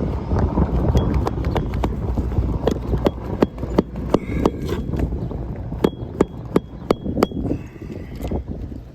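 Wind buffeting the microphone, with a run of sharp, irregular clicks and taps from about a second in until near the end, a few with a brief high ring.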